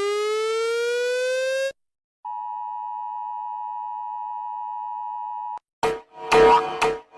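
An electronic siren wail, dipping and then rising in pitch, cuts off just under two seconds in. After a short gap, a steady two-tone beep, the Emergency Alert System attention signal, holds for about three seconds. Harsh on-and-off alarm blasts begin near the end.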